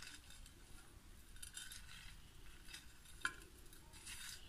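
Faint rustling and light scratching of mixed seeds and paper as a cheese-spread-coated bread loaf is rolled over them by hand, with one sharper click about three seconds in.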